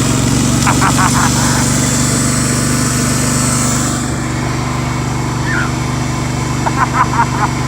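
Cub Cadet garden tractor engine running steadily, with a high hiss over it that drops away about halfway through.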